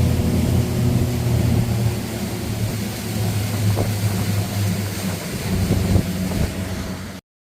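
Motorboat engine running steadily under way, then cutting off suddenly near the end.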